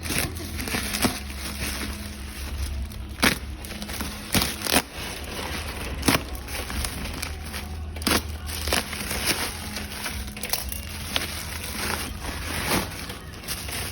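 A parcel's packaging being handled and opened, crinkling and crunching with scattered sharp snaps and clicks, over a steady low hum.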